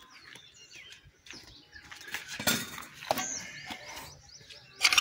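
Birds chirping in the background, with a few sharp knocks and clinks. The loudest comes near the end, from the metal hand lever of a manual dhoop-stick press.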